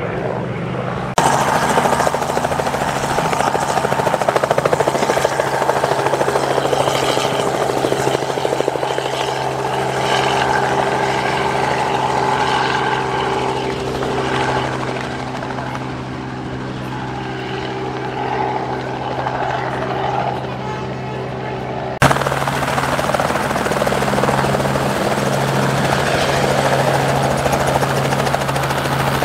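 Aircraft engine running steadily: a loud, low drone with a strong steady hum. The sound jumps abruptly louder about a second in and changes again about 22 seconds in.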